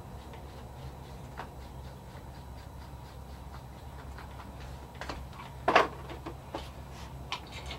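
Stir stick ticking and scraping against a small cup while two-part epoxy (clear resin and hardener) is mixed, with light irregular ticks and one louder clack about six seconds in.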